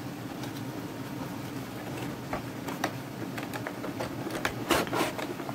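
Cardboard box being opened and handled: scattered small clicks and scrapes of the flaps, with a louder flurry of rustling about five seconds in, over a steady low hum.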